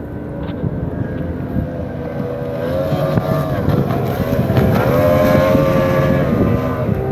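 Outboard motor on a small speedboat running at high speed as it passes close by. The engine pitch dips and recovers a couple of times, and it is loudest about five seconds in.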